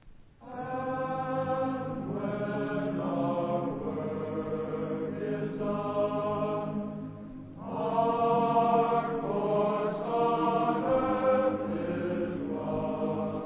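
Slow choral music sung in long held notes, starting about half a second in, with a louder phrase swelling up about eight seconds in.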